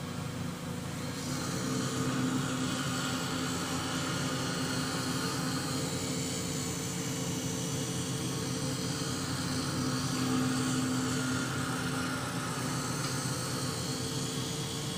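Automatic lens edger running as it cuts an eyeglass lens to the frame shape: a steady motor hum with an even grinding hiss, which swells about a second in.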